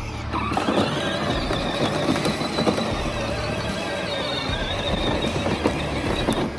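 Electric motors and gearboxes of ride-on Power Wheels toy vehicles whining steadily under load as a toy Gator tows a toy Jeep stuck in mud. The sound starts about a third of a second in.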